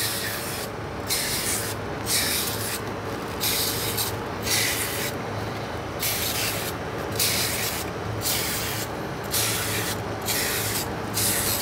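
Aerosol can of nonstick cooking spray giving short hissing bursts, about one a second, as each cup of a small baking tin is greased so the batter won't stick.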